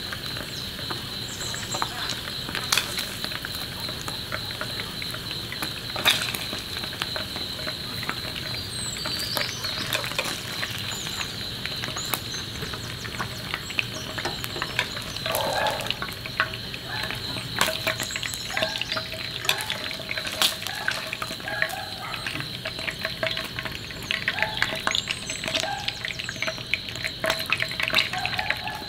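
Food sizzling and crackling in a frying pan, with frequent sharp pops and the clicks of tongs against the pan and plate.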